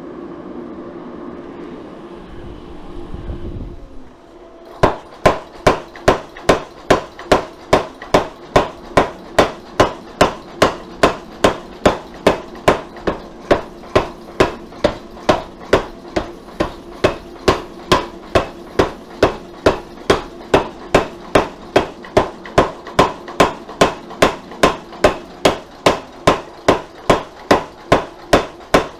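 Power hammer striking a red-hot steel san mai billet in a steady, even run of about two blows a second, starting about five seconds in: the forge-welded billet being hammered and drawn out. Before the blows there are a few seconds of steady running noise.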